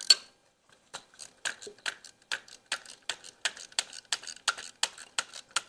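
Hand ratchet wrench clicking steadily, about four or five clicks a second, as a bolt is worked loose. One louder click comes right at the start.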